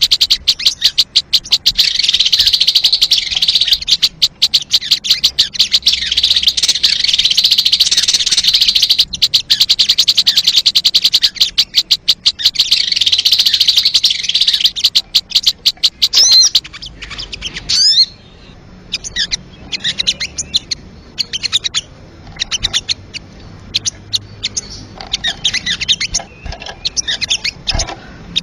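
Sogon bird calling: a loud, fast rattling trill that runs for about sixteen seconds, then breaks into a series of separate short chirps and quick up-and-down whistled notes.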